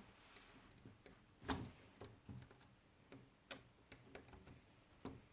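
Lego Technic plastic parts clicking and tapping as they are handled and fitted together: a series of sharp, separate clicks, the loudest about a second and a half in.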